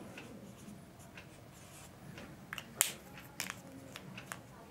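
Marker pen writing on a whiteboard: faint scratchy strokes, then a few short sharp clicks, the loudest about three seconds in.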